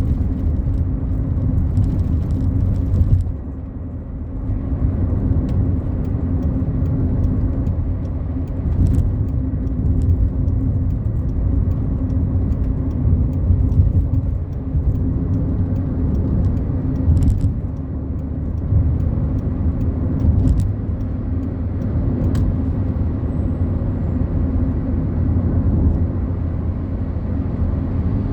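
Fiat Palio Fire cruising on a highway, heard from inside the car: a steady low rumble of engine and tyre noise with a constant hum, a few light clicks, and a brief drop in level about three seconds in.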